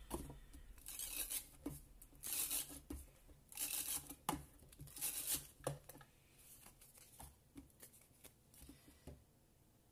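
Paper being handled and pressed down by hand: four short rasping strokes, then lighter rustles and a few taps that die away near the end.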